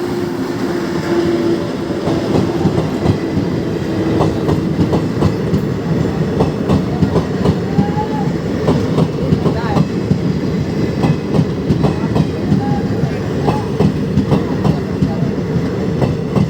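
Train running on the rails, heard from inside a coach: a steady rumble with a rapid clatter of wheels clicking over the track joints.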